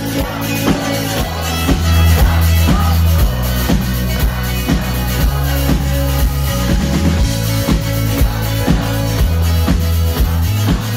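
Pop music with an electronic dance beat: a heavy bass line under a steady kick drum about twice a second, without singing.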